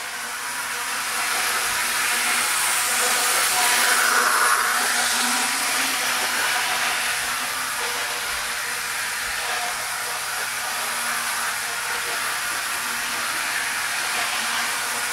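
HO scale model locomotive running along the track: a steady whirring hiss of its electric motor and wheels on the rails, growing louder over the first few seconds and then holding steady.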